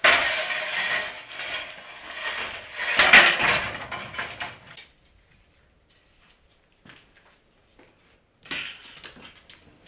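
Demolition rubble clattering and scraping for about five seconds, loudest around three seconds in, then a few faint knocks and a shorter clatter near the end.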